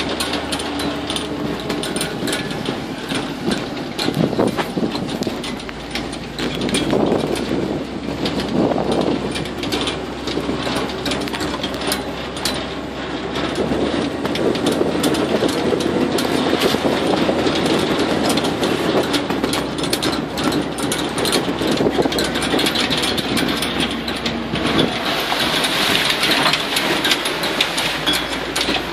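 Swamp buggy's engine running as the open vehicle drives along a rough dirt trail, with a constant rattle and clatter of the body over the bumps; it gets louder about halfway through.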